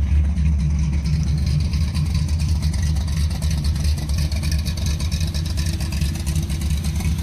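1970 Dodge Charger's V8 engine running steadily, with a deep, even exhaust pulse.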